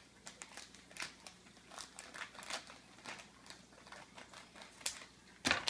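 Foil blind-bag packet being cut and pulled open by hand: a run of irregular short crinkles and crackles, with a louder crackle near the end.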